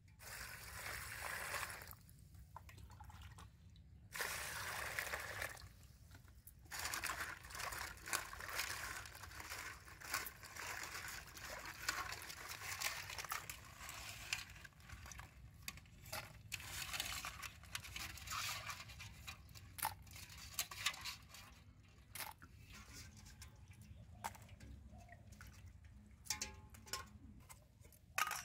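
Water poured from a mug into a steel bowl of chopped crab pieces in two short runs, then hands sloshing and rubbing the crab pieces in the water to wash them, with many sharp clicks. Near the end the sloshing dies down to scattered clicks.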